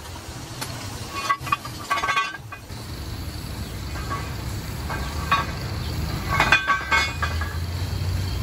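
Hyundai excavator steel track shoes clanking and ringing as they are handled and laid onto the track chain: a cluster of clanks about two seconds in and another between six and seven seconds, over a steady low hum.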